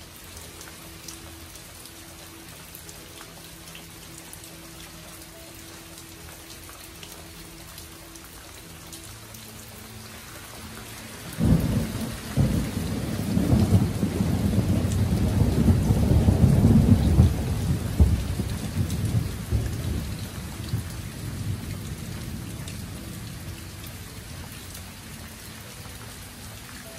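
Steady rain falling during a thunderstorm. About eleven seconds in, thunder breaks suddenly, rumbles loudly for several seconds, then slowly dies away under the rain.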